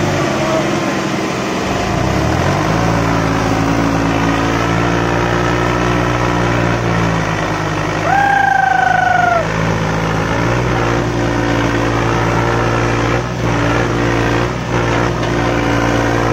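John Deere 5210 tractor's diesel engine running hard under load in a tug-of-war pull. Its revs rise about two seconds in, dip around the middle and pick up again. A horn sounds for about a second and a half midway through.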